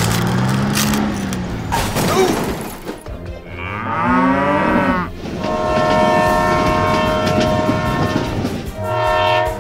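A cow moos once, about four seconds in. Then a train horn sounds a long, steady blast of several tones together for about three seconds, and a second blast starts near the end.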